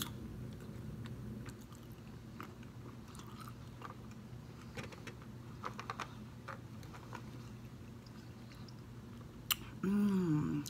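Close-up chewing of green grapes, with small wet crunches and clicks from the mouth. There is a brief hummed voice sound near the end.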